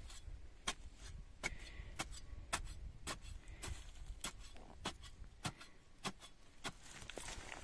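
A wooden stick tamping dry, hard soil around the base of a newly set wooden post, giving short, sharp knocks at a steady pace of about two a second.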